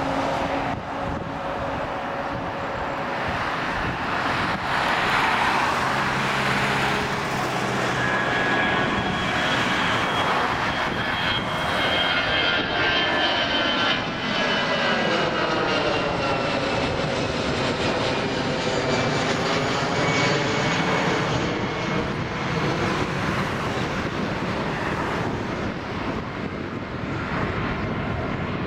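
Airbus A320-200 airliner's twin turbofan engines at takeoff thrust as it lifts off and climbs past overhead. The steady loud jet engine noise carries high whining tones that slowly drop in pitch as it passes.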